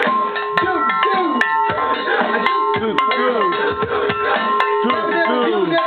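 Music with hand-drum percussion: pitched drum strokes that bend downward, over several steady held tones.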